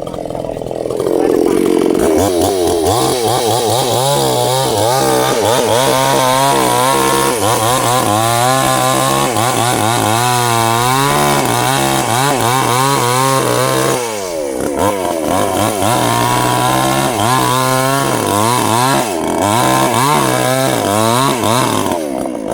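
Stihl two-stroke chainsaw revving up over the first couple of seconds, then running at high speed while cutting sengon wood, its engine pitch wavering as the chain goes in and out of the cut. It drops briefly about fourteen seconds in.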